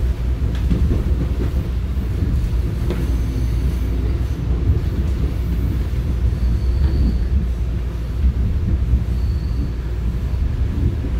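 Electric commuter train running, heard from aboard: a steady low rumble with a few faint clicks. Two brief faint high squeals come partway through.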